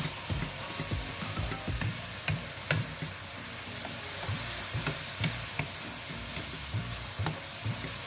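A wooden spatula stirs and scrapes cucumber slices and egg around a nonstick wok, with irregular scrapes and light knocks over a steady sizzle of frying.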